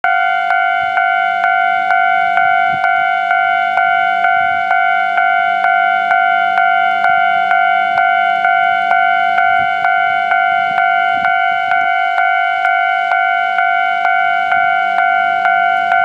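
Japanese railway level crossing's electronic warning bell ringing steadily, about two clangs a second, sounding as a train approaches the crossing.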